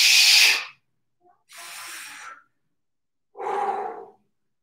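A man breathing hard with effort during a strength exercise: a loud, sharp exhale at the start, a quieter breath about a second and a half in, and a lower exhale with some voice in it, close to a grunt, near the end.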